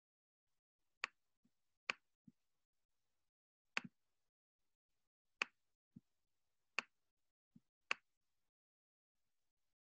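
About six sharp clicks spread over several seconds, most followed a moment later by a softer, lower knock, against near silence: clicks from someone working a computer.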